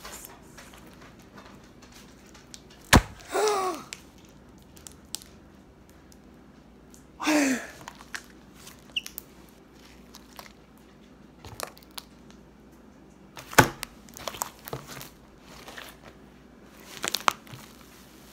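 Slime being stretched, popped and pressed on a table: two sharp snapping pops, a couple of short squelches that fall in pitch as trapped air is squeezed out, and small sticky clicks and crackles between.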